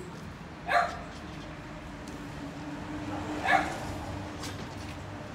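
A dog barks twice, short yipping barks that drop in pitch, about a second in and again about three and a half seconds in, over a steady low engine hum.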